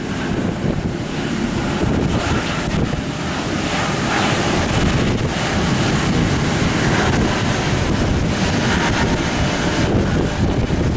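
Steady wind buffeting on the microphone over the rushing roar of a Boeing 767-300ER's jet engines as the airliner rolls out and slows after landing.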